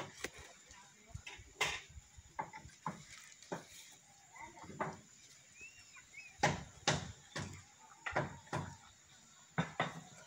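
Irregular sharp knocks of a wooden stick against a kithul palm's flower stalk. They come loosely in pairs and are loudest in the second half.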